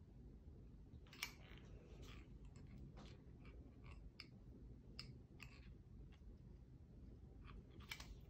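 Faint, irregular clicks and ticks from a jump rope handle being twisted and handled, about eight in all, over a low room hum.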